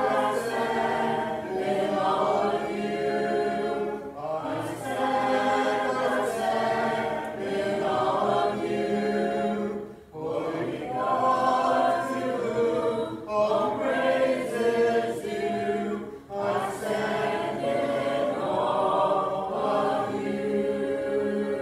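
A church congregation singing a hymn a cappella, many voices together without instruments, following the song leader. The singing runs in long held phrases with short breaks between them.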